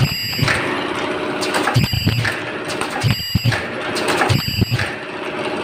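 Fully automatic ultrasonic face-mask making machine running, its rollers, chain drives and conveyors giving a steady mechanical clatter. A working stroke comes back about every one and a half seconds, each with a low thump and a high ringing tone.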